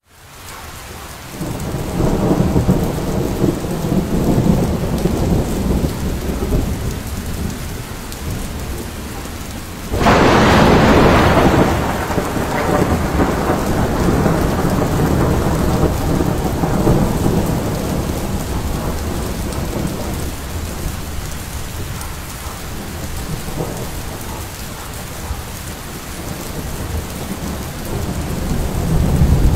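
Thunderstorm: rolling thunder rumbles, then a sudden loud thunderclap about ten seconds in that rolls away over a couple of seconds, with rain falling steadily.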